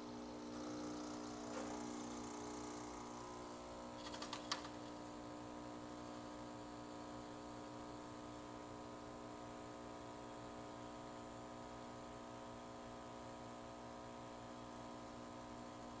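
Miele CM6350 coffee machine running faintly and steadily with a hum as it dispenses espresso, a little louder in the first few seconds. A short rattle of clicks comes about four seconds in.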